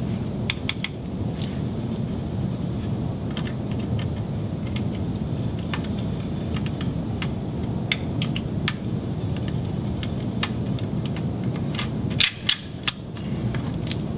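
Scattered sharp clicks and taps from fiber-optic connectors and ports being cleaned and handled, with a cluster of louder clicks near the end, over a steady low background hum.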